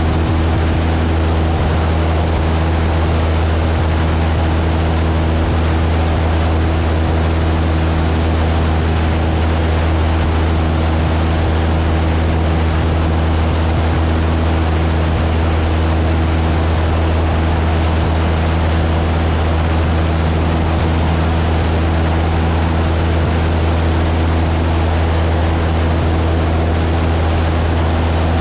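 Cessna 172's piston engine and propeller running steadily in flight, heard from inside the cabin as a constant, loud, low drone with a rushing noise over it.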